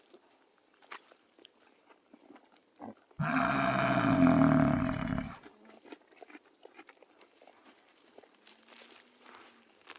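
A large animal's call lasting about two seconds, starting about three seconds in and stopping abruptly, over faint scattered clicks and steps.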